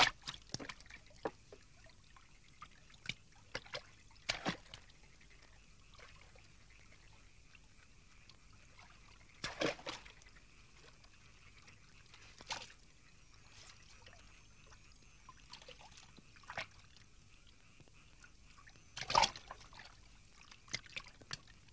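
Water splashing and dripping in short, scattered bursts as a wooden boat is pushed off with a pole and moves away, with two louder splashes about ten seconds in and near the end, over a faint hiss.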